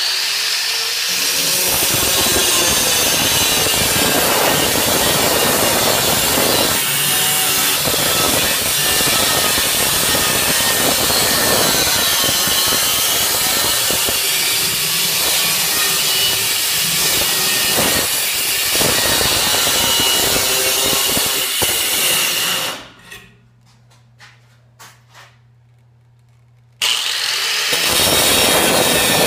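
Handheld angle grinder with a cut-off wheel cutting through a steel knife blank, a steady loud grinding. It stops about 23 seconds in, leaving a few seconds of quiet with a couple of small knocks, then the cutting starts again near the end.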